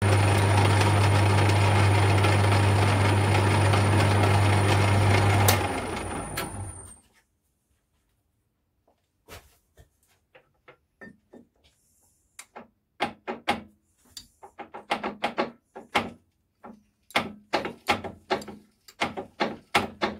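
Metal lathe running steadily with a strong motor hum, its chuck spinning an aluminium collar; it is switched off about five and a half seconds in and spins down to a stop. After a pause comes a growing run of short metal knocks and clicks as the aluminium collar is fitted into the bore of a fork yoke, a tight fit.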